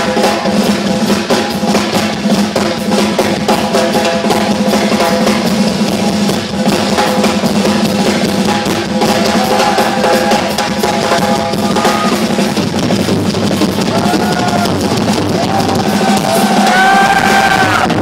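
Live rock drum kit solo: fast, dense strokes on bass drum and snare with drum rolls and ringing cymbals. Near the end, crowd cheering and whistling rises over the drums.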